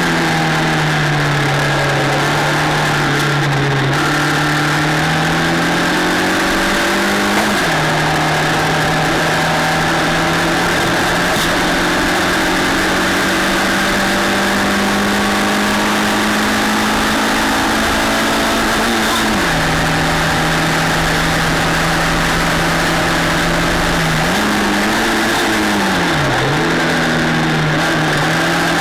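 Open-wheel formula race car's engine heard onboard at racing speed, over a steady rush of wind and tyre noise. The engine note climbs slowly and drops sharply about 7 and 19 seconds in as gears are changed, then rises and falls quickly twice near the end through a corner.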